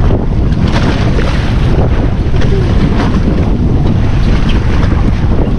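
Strong wind buffeting the microphone, with the wash of a choppy sea around a boat.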